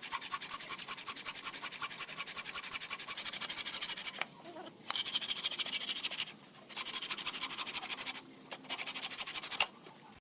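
Wood spinning on a lathe being cut or scraped by a hand-held tool: a rapid rasping tick, about ten a second, in four runs with short breaks between them.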